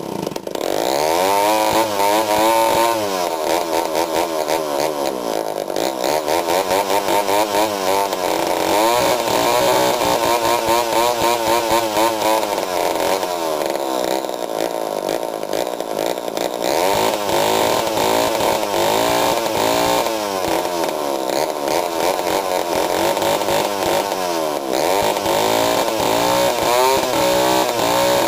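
Homelite Zip 77cc two-stroke chainsaw engine catching right at the start and then running, its pitch rising and falling over and over as the throttle is revved and let back. It would not idle properly on its own, which the owner puts down to carburettor issues.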